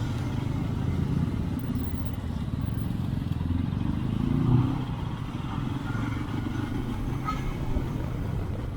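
Motorcycle engine running steadily while riding, with a brief rise in level about four and a half seconds in.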